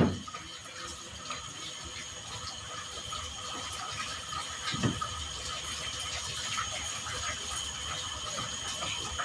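Machinery clicking and rattling with a steady high whine, broken by a sharp knock at the start and a dull thud about five seconds in.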